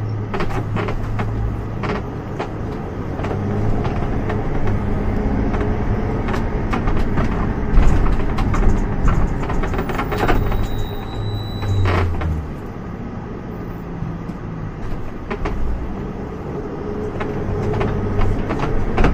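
Engine and road noise heard from inside a moving tour vehicle, a steady low drone with frequent small rattles and knocks.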